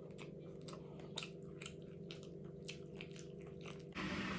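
A person chewing crunchy food close to the microphone: short crisp crunches, about three or four a second, over a steady low hum.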